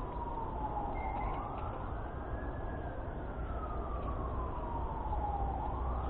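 Emergency vehicle siren wailing: its pitch climbs over about a second and a half, falls slowly over about three seconds, then climbs again near the end, over a steady low hiss.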